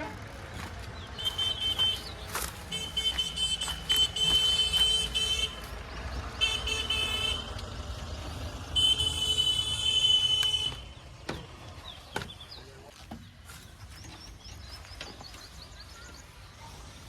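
A diesel engine running steadily under four long, high-pitched blasts of a vehicle horn over the first eleven seconds or so. After that only the engine is left, with a few sharp knocks.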